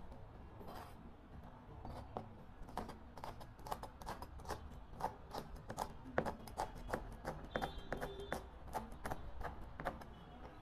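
Chef's knife chopping vegetables on a plastic cutting board: a quick, uneven run of sharp knocks, several a second.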